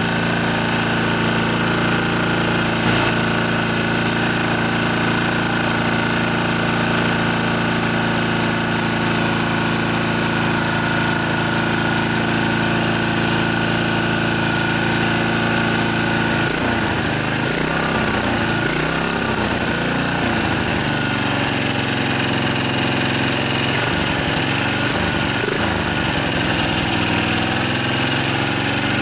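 Tecumseh H30 3-horsepower single-cylinder side-shaft engine running at a steady speed. From a little past halfway its speed dips and recovers unevenly several times as the throttle is worked by hand. The throttle is not responding properly because of a bent throttle linkage.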